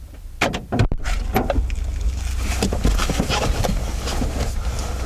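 A car running, heard from inside the cabin as a steady low rumble, with a quick run of knocks and clicks about half a second in.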